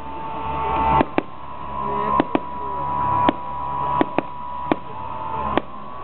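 Aerial firework shells bursting: sharp bangs at uneven intervals, about nine in six seconds, several coming in quick pairs.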